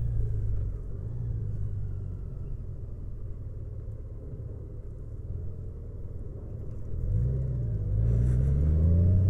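Honda Gold Wing Tour's 1833 cc flat-six engine running at low revs through a slow U-turn, then rising in pitch and getting louder as it accelerates away about seven seconds in.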